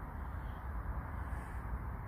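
Steady low rumbling noise with a light hiss and no distinct event.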